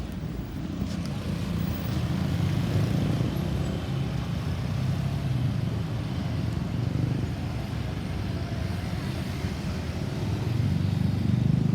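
Road traffic: a steady rumble of passing vehicles' engines and tyres, growing louder near the end as a vehicle comes close. No siren is sounding.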